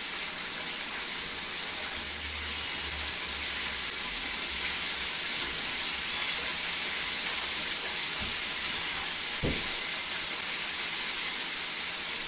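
Chicken pieces frying in hot peanut oil in a cast iron pot: a steady sizzling hiss. A short knock sounds about nine and a half seconds in.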